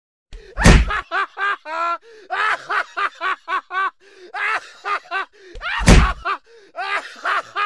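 Two heavy whacking impacts, about five seconds apart, the comic hit sounds of a slapstick kick. Between and after them comes rhythmic, pulsing laughter.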